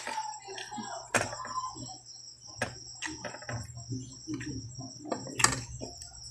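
Crickets chirping steadily in the background, with a few sharp clicks and taps from eating at the table as grilled chicken is pulled off its skewer by hand and a spoon is used; the loudest tap comes near the end.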